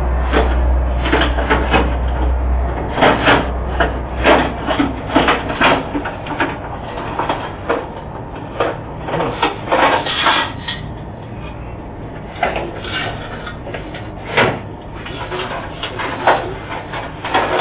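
Irregular knocks and clatter from thieves working at a car-wash vending machine during a break-in, with a low hum under the first few seconds.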